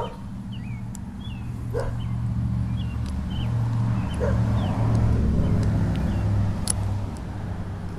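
Low vehicle engine rumble that swells and fades through the middle, with small birds chirping and a dog barking twice.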